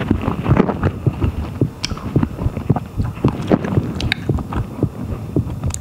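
Close-miked chewing of a coconut-coated strawberry, wet and irregular, with a few sharp clicks about two and four seconds in.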